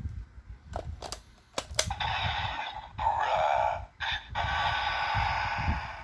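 Plastic clicks of a DX VS Changer toy transformation gun being handled, then its small built-in speaker playing electronic transformation sound effects, thin and tinny, from about two seconds in with a short break near the four-second mark.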